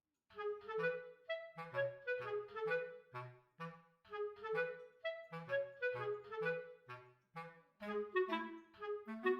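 Background music: a bouncy melody of short, separate notes over a bass line of short low notes, starting about a third of a second in.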